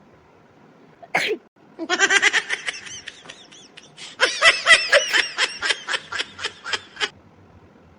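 A single short sneeze about a second in, followed by high-pitched laughter in quick repeated bursts that runs for about five seconds, with a short break in the middle.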